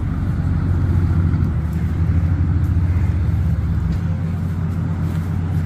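Steady low mechanical hum, like a running engine or machine, with its deepest part dropping away about four seconds in.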